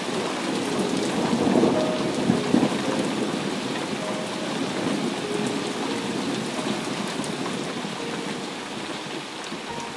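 Heavy rain falling steadily, with a low rumble of thunder swelling about a second in and easing off after about three seconds.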